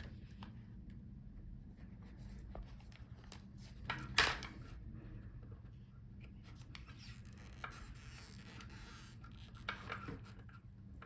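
Quiet handling noises of the adhesive pull-out strip being worked free from behind a laptop LCD panel: light rubbing and scraping, with a sharp click about four seconds in and a few fainter clicks.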